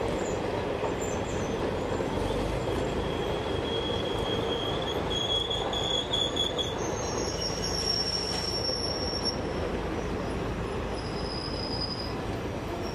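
Indian Railways passenger coaches rolling past at close range, with a steady rumble of wheels on the rails. A high-pitched squeal from the wheels comes in about two seconds in and sounds on and off, shifting higher in pitch partway through.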